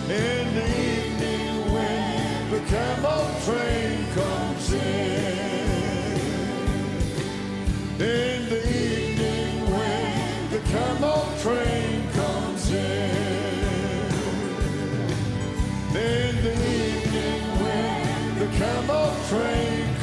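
Live gospel band playing an instrumental passage: acoustic guitars strumming over bass and a steady beat, with a gliding, wavering lead melody on top.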